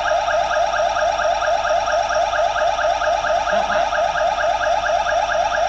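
Electronic warning siren on a roadshow truck, sounding a fast warble of short rising sweeps, several a second. It is one of the siren's selectable warning tones.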